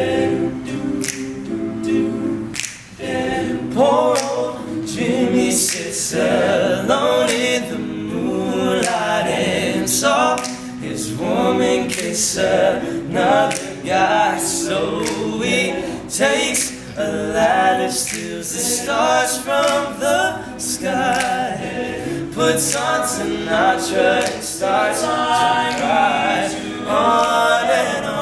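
An all-male a cappella group sings a pop song in close harmony, with no instruments. Sharp percussive clicks recur through it, keeping the beat.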